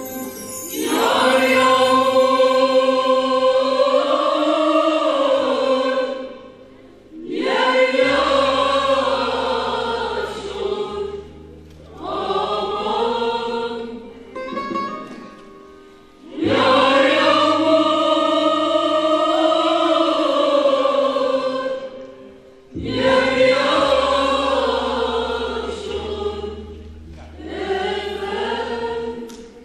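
Mixed choir of men and women singing a Turkish folk song, in phrases a few seconds long with short breaks between them. A low sustained instrumental note sounds beneath some of the phrases.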